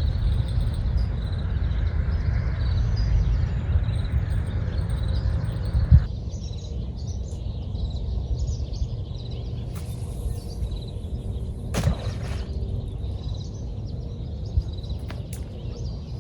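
Outdoor ambience: a steady low rumble of wind on the microphone with small birds chirping repeatedly. A hissing noise stops abruptly with a knock about six seconds in, and there is another knock near twelve seconds.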